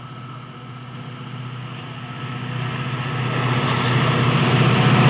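Diesel locomotive hauling an express train, approaching at speed. Its engine throb grows steadily louder, and the rushing of wheels on rail swells over the last couple of seconds as it reaches the platform.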